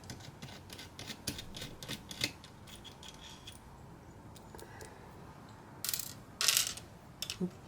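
Light clicks and ticks of small tools and parts being handled inside an opened laptop while its Wi-Fi card is being detached, with two short louder scrapes about six seconds in.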